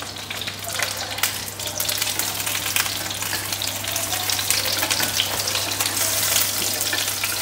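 Electric blender grinding shrimp: a steady motor hum under a dense crackling rattle that grows a little louder as it runs.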